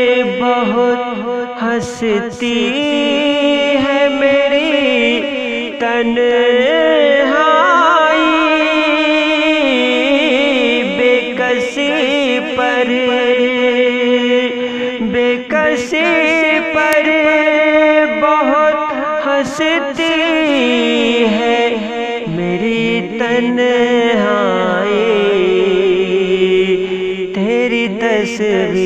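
Ghazal music with no sung words: a wavering melodic line over steady held drone notes, the drone shifting pitch a few times.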